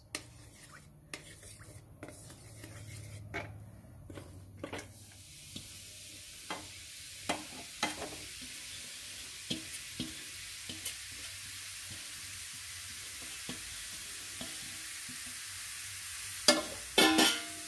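Grated carrots going into hot desi ghee in a metal kadhai and frying with a steady sizzle from about five seconds in, over scattered scrapes and taps of a wooden spatula. A few sharp knocks near the end.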